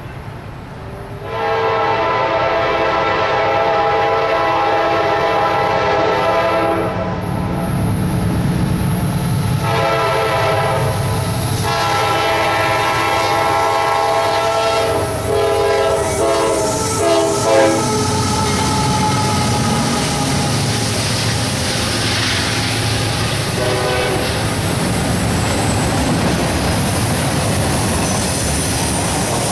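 Diesel locomotive horn blowing for a grade crossing: several long blasts starting about a second in, then a few short ones, stopping a little past the halfway point. The CSX AC6000CW and SD70ACe locomotives, pulling up grade, then pass with a heavy diesel rumble, followed by the steady rumble and clatter of autorack cars rolling by.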